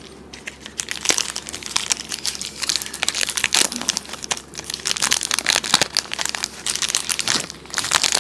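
Plastic chocolate-bar wrappers from Cadbury 5 Star bars crinkling and crackling as two are torn open and peeled back by hand, with a rapid, irregular run of crackles throughout.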